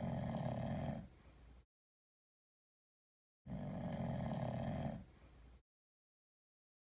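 Sleeping cat snoring like a human: two snores about four seconds apart, each ending in a fainter tail, with silence between.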